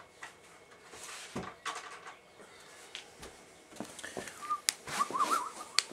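Camera handling noise: clicks, knocks and rustling as someone moves close and adjusts the camera. A short warbling whistle comes in about four seconds in and lasts about a second and a half.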